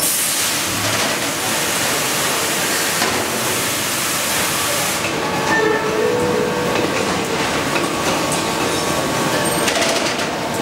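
Automatic stator coil lacing machine running as its needle stitches lacing thread around the coil end-turns: a steady mechanical noise, with the higher hiss easing about five seconds in.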